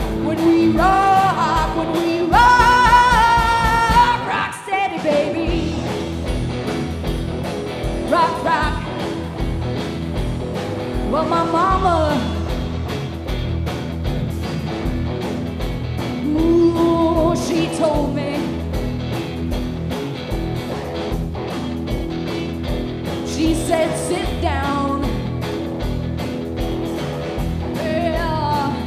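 Live rock band playing: a woman singing lead over electric guitars and drums with a steady beat.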